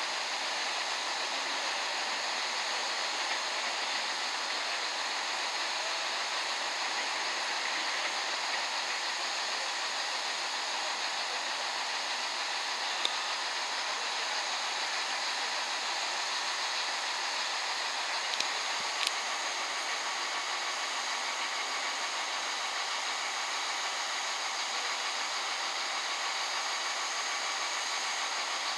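Steady hissing drone of a Class 165 diesel multiple unit idling at the platform, with a few small clicks.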